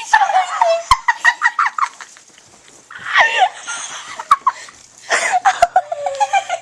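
Hysterical high-pitched laughter in quick bursts, breaking off for a moment about two seconds in and then starting again, with two sharp clicks, one about a second in and one near the end.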